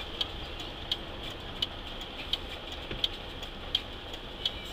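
Inside a Mercedes truck's cab: the engine and road noise run steadily under a regular tick about every 0.7 seconds from the indicator relay clicking.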